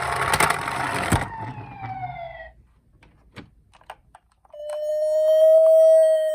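Toy ambulance minicars' electronic sirens: a siren tone over a noisy rattle cuts off with a sharp click about a second in, a tone then slides down and fades out, a few light clicks follow, and about four and a half seconds in a new long electronic siren tone starts and holds, slowly sagging in pitch.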